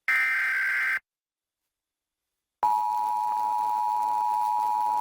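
Emergency Alert System test signal: a burst of SAME digital header tones, about a second long, then after a short pause the steady two-tone EAS attention signal starts about two and a half seconds in.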